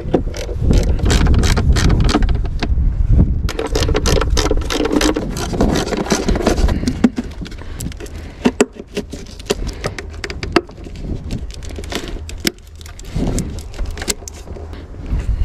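Metal socket tools clinking and scraping irregularly: a socket on an extension is fitted to and turned on 10 mm cover screws in an engine bay, with hoses being handled around it.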